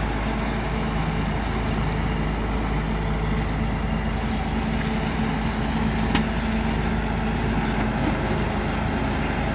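Heavy diesel engine of road-paving machinery running steadily at a constant pitch, with one brief sharp knock about six seconds in.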